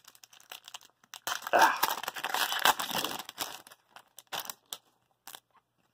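A trading card pack's foil wrapper being torn open and crinkled, loudest from about one to three seconds in. A few separate crackles follow as the cards are slid out of the wrapper.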